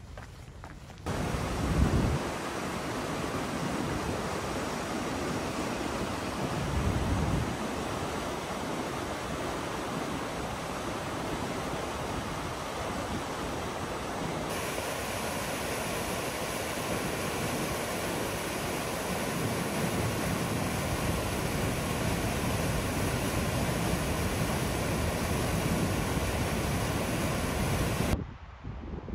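Steady rushing of a mountain river's white-water rapids, with low gusts of wind on the microphone about two and seven seconds in. The rush turns brighter and hissier about halfway through.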